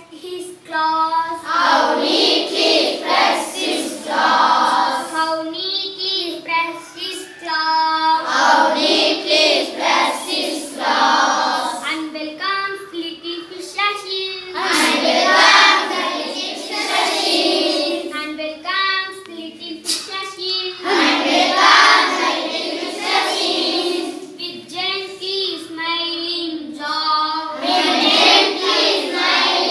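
A class of schoolboys singing an English poem together in unison, in phrases with brief pauses between them.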